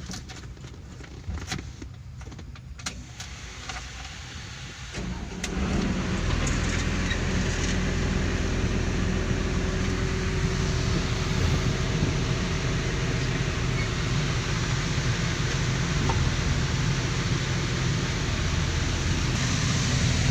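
Excavator diesel engine started after a few clicks, catching about five seconds in and then running steadily at idle.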